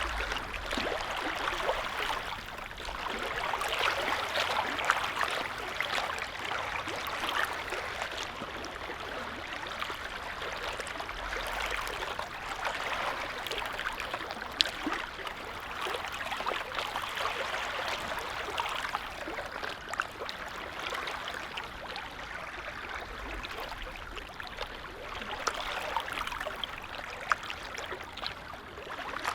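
Small lake waves lapping: a steady wash of water with many small splashes, swelling and easing gently every few seconds.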